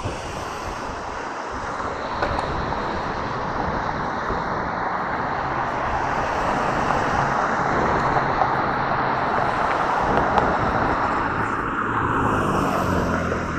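Steady rushing wind and road noise from a mountain bike rolling along pavement, picked up by the bike's camera microphone, growing gradually louder over the first several seconds as speed builds.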